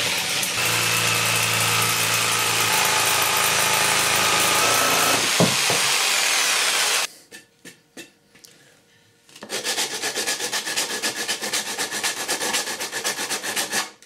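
Electric jigsaw running and cutting through a wooden board, stopping about seven seconds in. After a short pause, a piece of the cut wood is sanded by hand in quick, even back-and-forth strokes.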